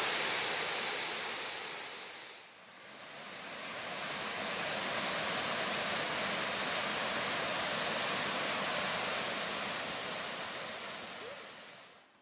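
Waterfall: a steady rush of falling water. It drops away briefly about two and a half seconds in, swells back, and fades out near the end.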